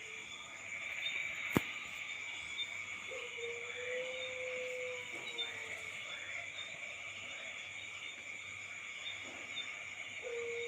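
Night insects, crickets among them, calling steadily in a high chorus. Twice an unidentified low tone is held for about two and a half seconds, rising slightly and then dropping off at the end: the strange night sound. A single sharp click comes about a second and a half in.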